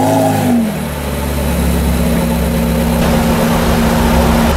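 Porsche 918 Spyder's 4.6-litre V8 coming down from a rev, its pitch falling over the first half-second or so, then idling steadily with a deep, even rumble.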